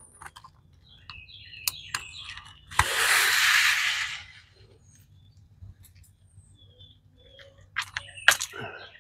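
Birds chirping, with a hissing rustle lasting about a second, about three seconds in, and a few sharp knocks near the end.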